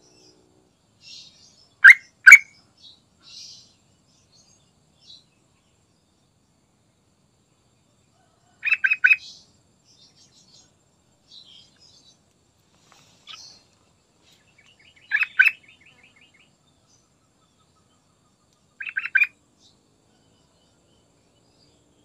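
Yellow-vented bulbul (trucukan) singing in short bubbly phrases of quick loud notes: two sharp notes about two seconds in, then bursts of three or four notes around the middle, a few seconds later and near the end. Fainter, higher chirps come in between.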